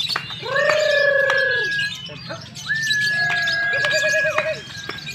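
Caged lovebird singing its continuous chattering ngekek, with two long held whistled notes, each over a second long, and lower warbling calls under them.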